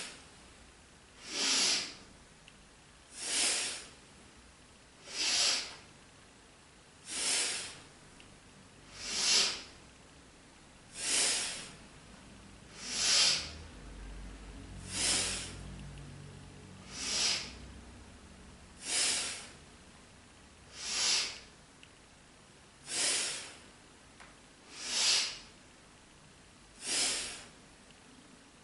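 A woman's forceful breathing during fast standing yoga front bends: a loud rush of breath about every two seconds in a steady rhythm, each breath paced to a stretch up or a bend down.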